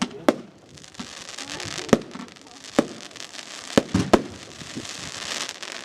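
Fireworks display: about six sharp bangs from bursting aerial shells, three of them in quick succession about four seconds in. A steady crackle of crackling stars runs between the bangs and thickens toward the end.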